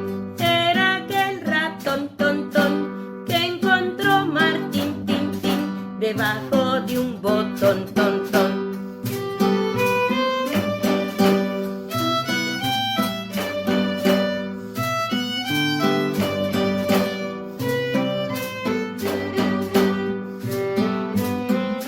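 Lively instrumental music: plucked guitar with a bowed string melody over a steady beat.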